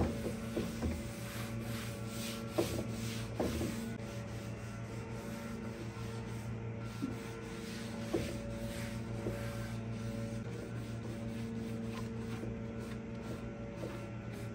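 A cloth rag rubbing and wiping hard wax oil over a wooden drawer front in short scuffing strokes, over a steady low hum.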